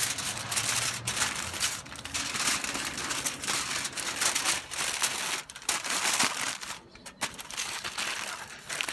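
Aluminium foil crinkling and crumpling as hands fold it over and press it around a smoked roast, with a couple of brief pauses.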